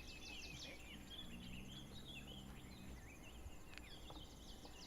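Faint outdoor ambience of small birds chirping and twittering, over a soft insect-like hiss. A faint low hum comes in about a second in and fades near three seconds.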